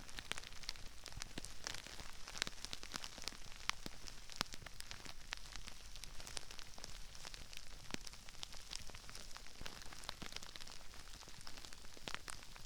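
Crispy rice grains raining down around a binaural microphone: a dense, unbroken patter of small crackles and pops, sharp and high-pitched, with an occasional louder snap.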